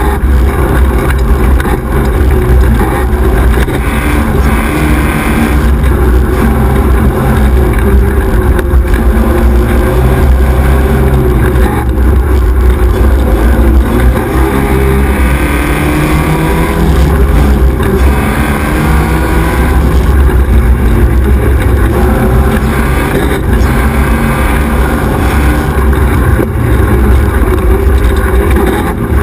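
XY 1100R buggy's engine running hard at race speed, recorded on board, its revs rising and falling continuously as it is driven along a dirt track.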